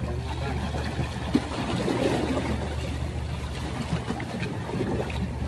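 A hooked rabbitfish thrashing and splashing at the sea surface as it is pulled toward the rocks on a long fixed-line pole, over a steady low background hum.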